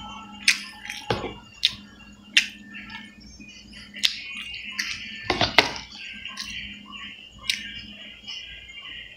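Eating sounds: a spoon clinking and scraping on a plate, with mouth smacks while chewing, about ten sharp clicks in all, the loudest pair a little past halfway. A steady low hum runs underneath.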